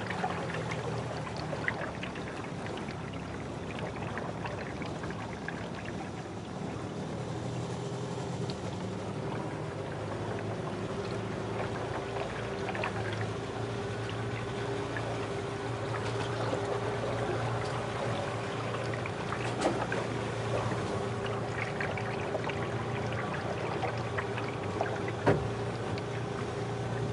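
Aluminium boat moving slowly up a narrow creek: water trickling and lapping along the hull over a steady motor hum. Two sharp knocks stand out in the second half.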